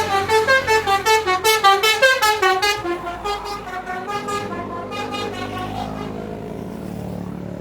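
Basuri telolet horn playing a quick melody of stepped notes, several notes a second, loud for about three seconds and then fading into softer tones over a low steady drone.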